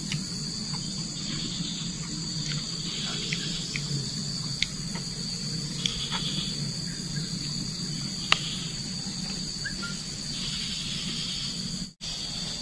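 A steady high-pitched chorus of insects, crickets or cicadas, chirring without a break, with a few sharp clicks over it. The sound cuts out for an instant near the end.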